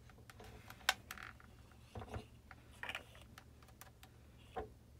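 Faint scattered clicks and paper rustles from a hot glue gun being worked and folded patterned paper being handled while gluing, the sharpest click about a second in.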